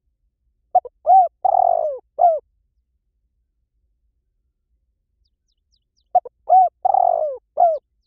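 Spotted dove cooing: two identical phrases about five seconds apart. Each is a short note, a coo, a longer rolling coo that falls in pitch, and a final coo.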